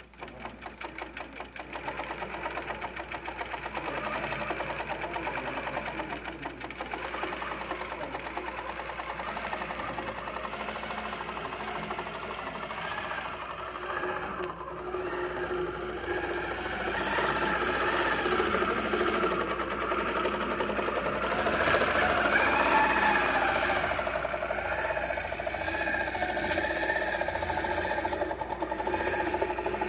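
Longarm quilting machine stitching a long basting line across the batting at four stitches per inch, a fast, even needle rhythm with its motor running underneath. It gets louder about halfway through.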